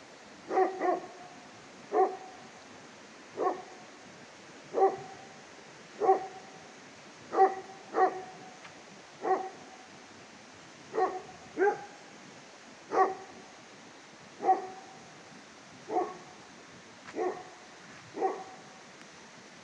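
A dog barking at night in a slow, steady series of single barks, about one every second and a half, now and then two close together. It is restless alarm barking, which the owner suspects is at a wolf.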